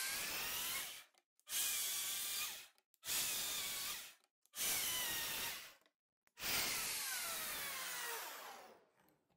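Swiss Pro KSP chain mortiser's electric motor and cutting chain plunging into a timber beam, its whine dropping in pitch as the chain bites into the wood. It comes in five runs of one to two seconds each with silent breaks between them, and the last run winds down near the end.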